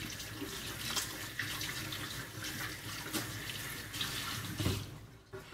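Kitchen sink tap running as hands are rinsed under it, then turned off near the end.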